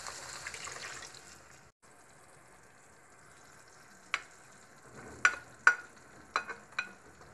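Water poured into a hot frying pan of sautéed vegetables sizzles for about a second and a half. A few seconds later come about six sharp knocks as julienned carrot sticks are tipped from a bowl into the pan.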